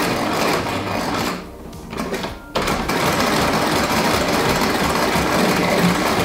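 Domestic electric sewing machine running a straight top-stitch through a denim jeans waistband and trim, the needle hammering rapidly. It stops for about a second early on, then starts again abruptly and runs steadily.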